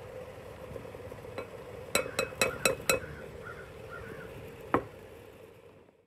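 A silicone spatula rapped five times in quick succession on the rim of a speckled enamel double-boiler bowl, each tap ringing briefly, then one more knock about two seconds later, over a steady low hum.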